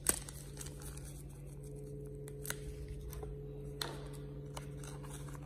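Hands handling a small action-camera accessory and cardboard packaging: a few sharp clicks and taps, the loudest right at the start, then two smaller ones about two and a half and four seconds in. A steady low hum runs underneath.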